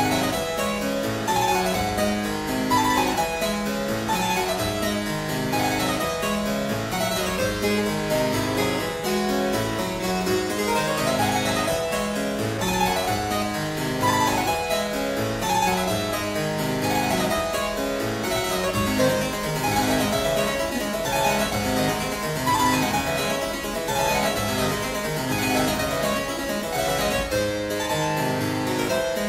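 Solo harpsichord playing a fast fandango, with quick runs over a repeating bass pattern.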